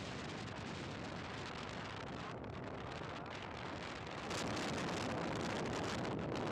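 Wind buffeting the microphone on a moving motorcycle, a steady rushing noise with road noise under it; it gets a little louder about four seconds in.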